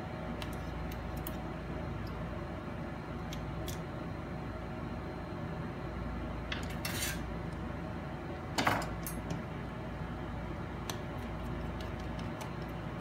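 Small metal clicks and clinks of tiny screws and precision tools being handled and set down on a workbench during laptop disassembly, with a brief rattle about halfway and a louder clatter shortly after.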